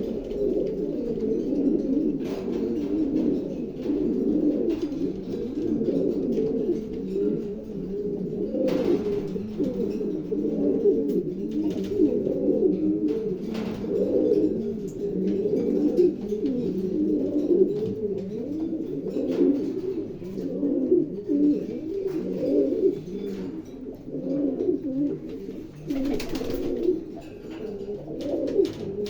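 Many domestic fancy pigeons cooing at once, their low calls overlapping without a break. Two brief rustling sounds cut through, about nine seconds in and near the end.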